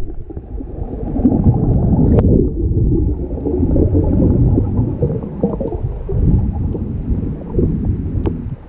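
Muffled, irregular low rumble of water moving around an underwater camera's housing, with a sharp click about two seconds in and another near the end.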